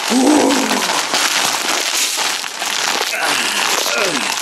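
Plastic candy wrapper crinkling and crackling as hands try to tear it open, with a couple of short wordless voice sounds near the start and a little after three seconds.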